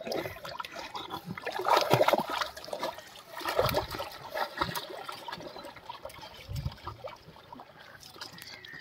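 Rottweiler splashing through the water as it sets off swimming, its tail slapping the surface; irregular sloshing and splashing, loudest about two seconds in, then quieter as the dog swims away.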